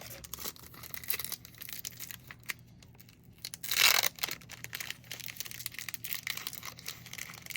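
A baseball card pack's wrapper being torn open in one loud rip about four seconds in, among crinkling of the wrapper and small clicks and rustles of cards being handled.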